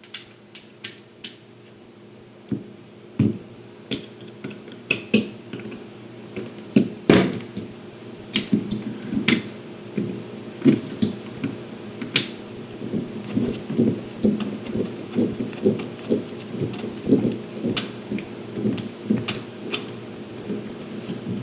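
Irregular small clicks, taps and scrapes of Torx drivers and the metal multitool being handled while its pivot screw is undone, the handling busier in the second half.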